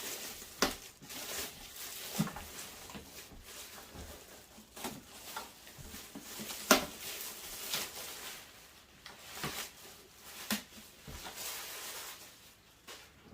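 Handling noises as a meat grinder is unpacked and set down on a counter: scattered knocks, taps and rustles of packaging, with a few sharper clicks.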